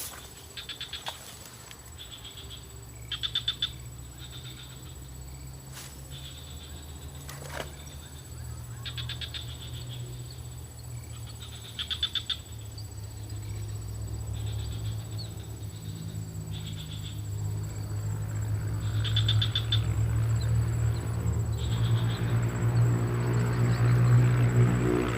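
Short, rapidly pulsed animal calls repeated every couple of seconds, over a low steady drone that grows louder toward the end.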